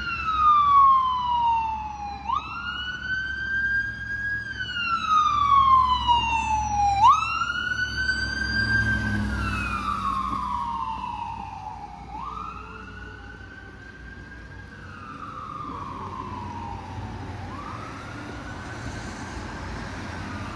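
Ambulance electronic siren on wail. Each cycle jumps up quickly and then sinks slowly, about every five seconds. It is loud at first and fades after about eight seconds as the ambulance moves away, with the low rumble of the passing vehicle beneath.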